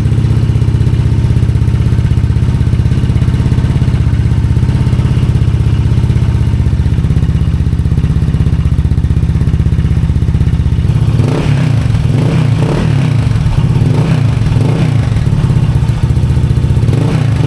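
Honda ADV 160 scooter's single-cylinder engine breathing through a stainless Replica Pro 'silent killer' aftermarket exhaust, idling steadily. About eleven seconds in, the throttle is blipped several times, so the exhaust note rises and falls repeatedly.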